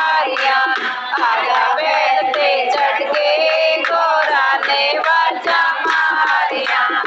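Women singing a Hindi devotional bhajan together in a group, over a steady percussion beat.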